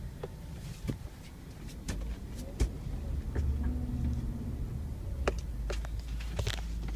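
Subaru Forester moving slowly, heard from inside the cabin: a low steady rumble with several sharp knocks scattered through it, the knocking the car makes when turning.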